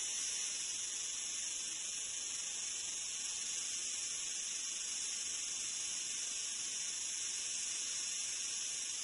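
A steady, high-pitched hiss that holds at one level without breaks.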